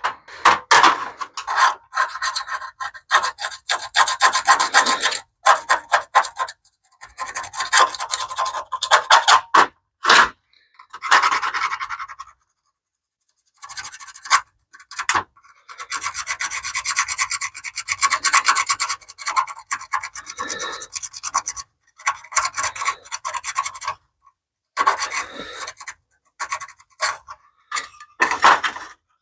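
Hand tool scraping caked grime off the thin metal heat shield from a BMW E30 motor mount. It comes in runs of quick scraping strokes broken by short pauses, the longest about a dozen seconds in.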